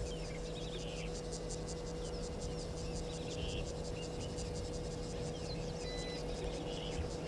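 Bushveld daytime ambience: an insect chirping in a high, rapid, regular pulse, with a few faint short bird calls over it. A steady low hum runs underneath.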